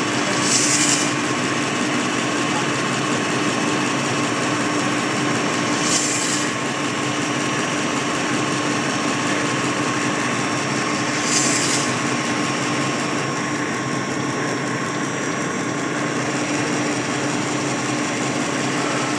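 Sigma crankshaft belt-polishing machine running, its abrasive belts polishing the journals of a turning crankshaft: a steady machine hum with a constant tone. Three short hisses cut in, about five and a half seconds apart.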